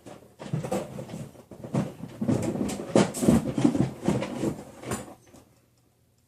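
Irregular knocks, clatters and rustles of someone moving about and handling things, dying away about five seconds in.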